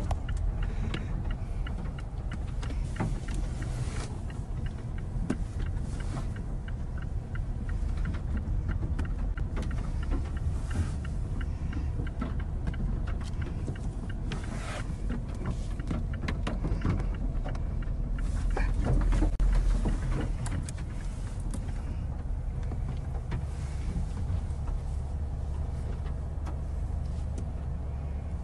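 A car driving, with a steady low rumble of engine, road and wind, and many scattered sharp ticks and taps. The rumble swells louder about two-thirds of the way through.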